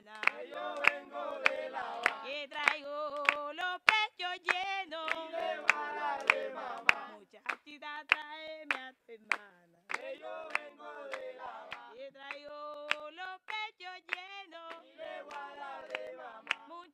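A group of voices singing a folk song with hand clapping keeping the beat, the singing breaking off briefly about nine seconds in.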